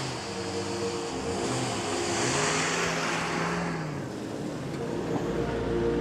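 Off-road 4x4 engine revving up and easing off several times as it drives over sand dunes, with a rushing hiss in the middle.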